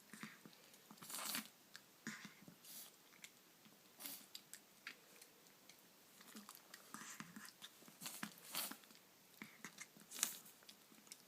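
A chihuahua sneezing over and over: about a dozen short, sharp sneezes at uneven intervals, some coming in quick pairs.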